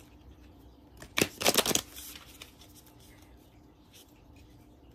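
A deck of oracle cards being shuffled by hand: a short flurry of card snaps and rustles about a second in, lasting under a second, over a faint steady hum.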